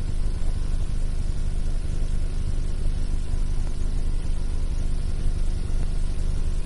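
A steady low rumble with no clear source, strongest in the bass and unchanging throughout.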